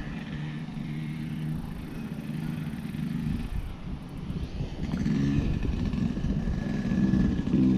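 A motor engine humming steadily, its low drone growing louder about five seconds in and again near the end.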